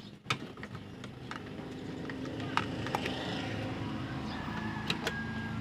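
Several sharp clicks as a CRT television's power plug is pushed into a power strip and the set is handled, over a steady low hum.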